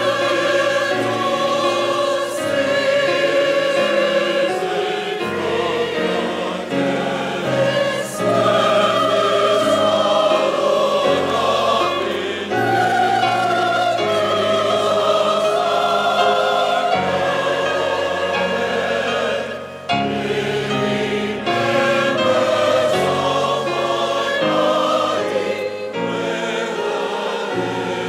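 Large mixed church choir singing with grand piano accompaniment, the sound dropping off briefly about twenty seconds in.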